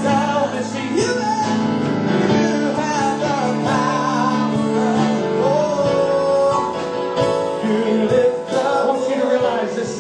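Live worship music: male and female voices singing over instrumental accompaniment with steady held chords.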